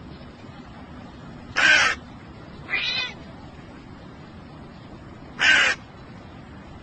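A crow cawing: two loud short caws about four seconds apart, with a quieter, wavering call between them.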